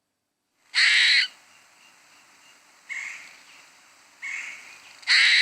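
A large bird's harsh calls: two loud, rasping calls about four seconds apart, with two fainter calls between them.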